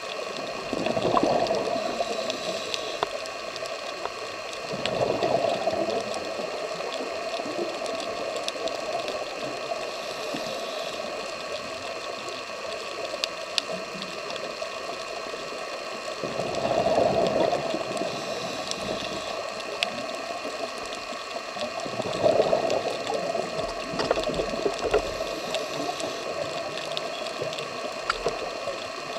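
Scuba diver's regulator exhaust bubbles, bubbling up in surges a second or two long every few breaths, over a steady underwater hiss.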